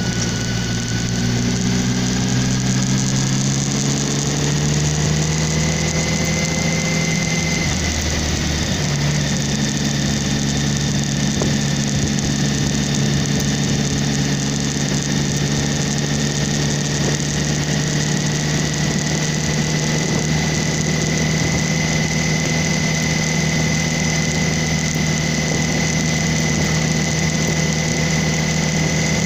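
Motorcycle engine running steadily while riding, heard from a camera mounted on the bike, over a steady rush of wind and road noise. The engine pitch rises over the first few seconds and changes briefly about eight seconds in, then holds even.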